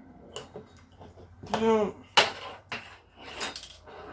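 A few sharp clicks and knocks from handling the old vacuum cleaner's parts and wiring, the loudest a little over two seconds in, with a short murmured voice sound just before it.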